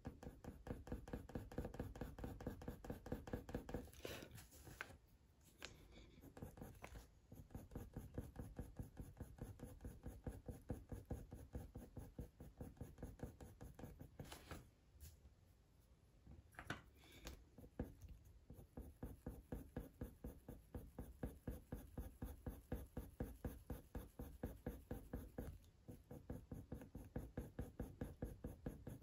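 Black Faber-Castell Polychromos coloured pencil scratching across hot-press watercolour paper in quick, short shading strokes, several a second, with a couple of brief pauses.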